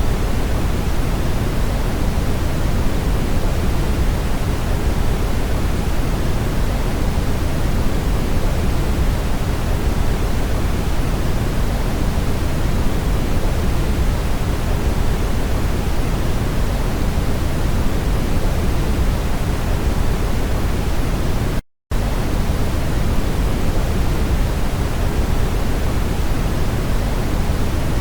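Steady brown noise, a deep, even hiss weighted toward the low end, with no changes or events in it except a split-second dropout to silence about three quarters of the way through.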